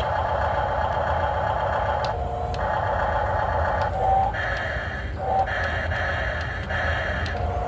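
Excavator working: a rasping mechanical whine that runs in four spells and cuts out briefly between them as the controls move, over a steady low rumble. Short whistling tones come in about four and five and a half seconds in.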